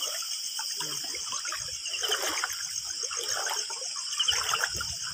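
Shallow stream water trickling and splashing over rocks, with a few soft knocks near the end. Insects chirr steadily in the background.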